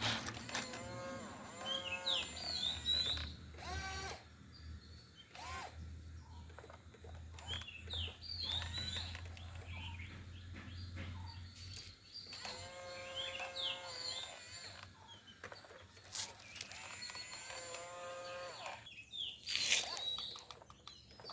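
Birds chirping, with a few drawn-out pitched animal calls and a low steady hum through the first half.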